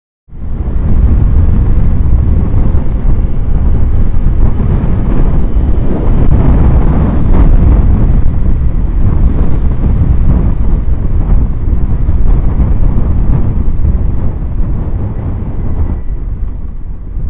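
Loud wind rush and buffeting on the microphone of a camera on a moving motorcycle, with the bike's engine and road noise underneath. It comes in suddenly just after the start and eases a little near the end.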